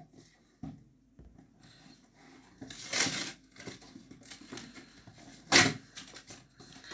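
Product packaging being pried and torn open by hand: a few soft knocks, a short tearing rasp about three seconds in, and a sharper, louder rip near the end.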